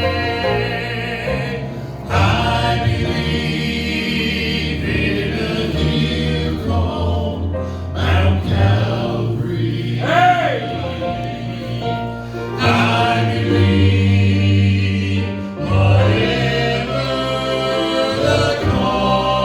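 Gospel vocal group singing in harmony with instrumental accompaniment.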